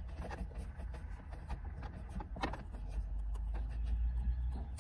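Faint clicks and small scrapes of a T20 Torx screwdriver tightening the screw on a rear-view mirror mount, over a low steady rumble.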